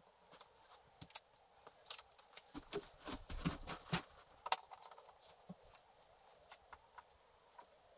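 Faint handling noises as a large framed picture fitted with 3M Command hook-and-loop strips is pressed onto the wall: scattered clicks and knocks, with a cluster of duller thumps about three to four seconds in.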